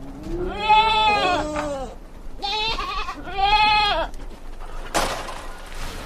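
Goats bleating: a long wavering bleat with a second voice overlapping it, then a short bleat and another longer one. A brief rush of noise comes about five seconds in.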